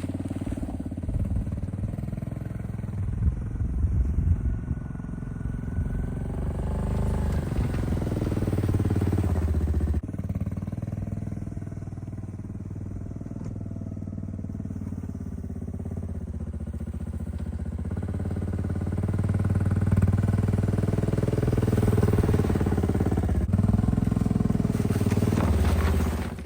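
1992 Honda Fourtrax ATV's single-cylinder four-stroke engine running under load while it pushes a snow plow blade, the revs rising and falling repeatedly and getting louder in the last third.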